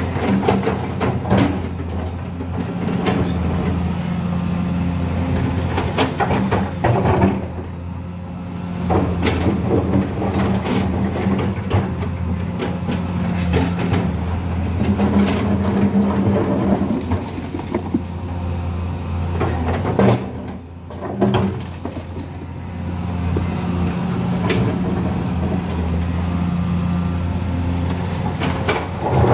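Volvo crawler excavator's diesel engine running steadily as the machine works its bucket in rocky soil, with knocks, scraping and the clatter of stones at irregular moments.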